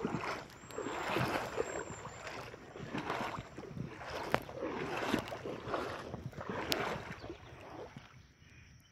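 Shallow creek water sloshing and splashing in uneven swishes about once a second, as from wading through it, with a couple of sharp ticks.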